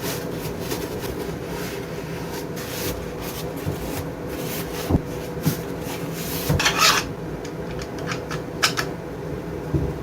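Rubbing and scraping with scattered light knocks and clicks over a steady faint hum, with a louder scratchy stretch about two thirds of the way through.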